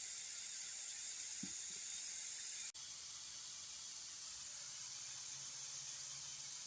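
Sun-dried potato pieces frying in hot oil with a steady sizzle. It breaks off for an instant a little under three seconds in and goes on slightly quieter.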